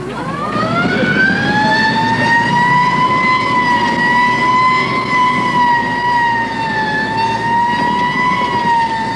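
Police car siren winding up over the first two seconds to a steady high tone that wavers slightly in pitch, over the rumble of the car's engine and road noise as it answers a shooting call.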